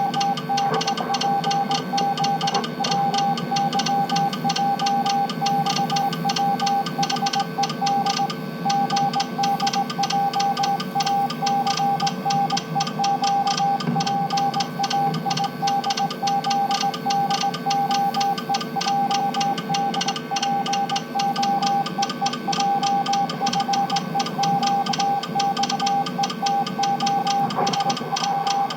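Morse code: a single steady beep keyed on and off in dots and dashes, over a fast, even ticking.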